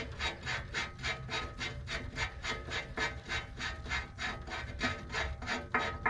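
Socket ratchet clicking at about four strokes a second as it spins a loosened blade nut off the bolt of a rotary cutter, with a couple of louder strokes near the end.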